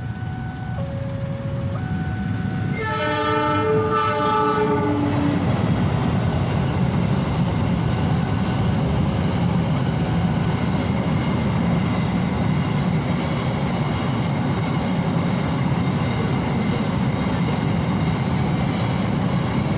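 A level-crossing warning signal alternates two tones about once a second. About three seconds in, a diesel locomotive's horn sounds one long chord that sags slightly in pitch. A container freight train then rumbles steadily past the crossing for the rest of the time.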